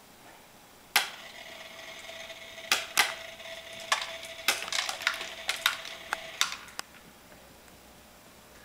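Automatic cat feeder running: a sharp click about a second in, then its small motor whines steadily for about five and a half seconds with irregular clicks and rattles over it, and it stops abruptly.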